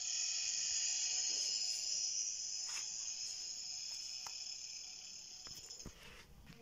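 Recorded sound clip from a sound-lotto game played back: a steady, high-pitched chirring sound that starts abruptly, fades slightly and cuts off about six seconds in. A few faint clicks and soft knocks come near the end.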